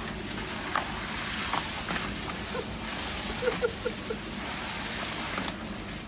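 Water spraying and rushing out around a blue suction hose into a septic tank opening, a steady noisy hiss, with the even hum of a running pump underneath and a few small knocks.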